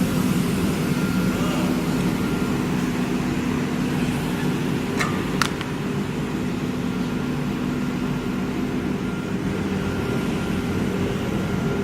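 Steady machine hum of a CNC router running, with two sharp clicks about five seconds in.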